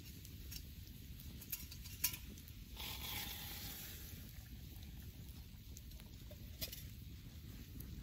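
Wood campfire crackling, with scattered sharp pops, the loudest about two seconds in, over a steady low rumble. A brief hiss rises about three seconds in and lasts about a second.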